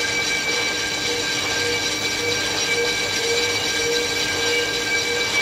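Large engine lathe running, its spindle and faceplate turning a metal pump sleeve while the tool faces its end. A steady mechanical whine with several high tones and a wavering lower one over the gear and cutting noise.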